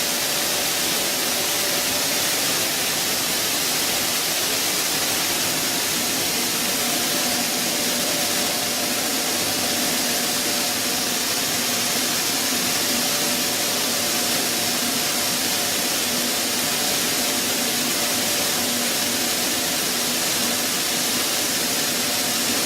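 Stone flour mill running: a steady hiss with a faint, even hum underneath.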